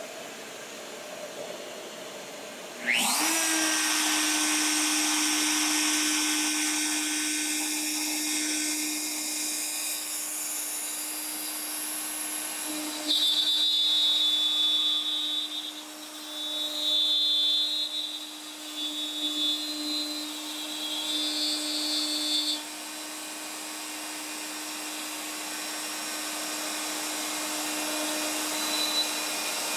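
A Bosch compact router working as a CNC spindle switches on about three seconds in. Its whine rises quickly to a steady pitch over the steady hiss of a dust-extraction vacuum at the hose. From about thirteen to twenty-two seconds in, the bit cuts into plywood, adding a loud, high, uneven whine that comes and goes. After that the router runs on more quietly.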